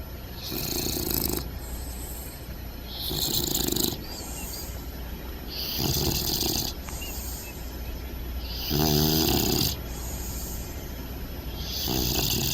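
English bulldog puppy snoring in its sleep: five slow, regular snores about three seconds apart, each about a second long, breathy with a raspy rattle. The loudest comes about nine seconds in.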